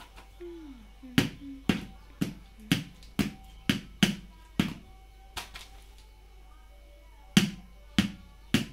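Repeated sharp knocks on a glass jar being filled with coriander powder, about two a second, pausing for a couple of seconds after the middle before three more knocks near the end.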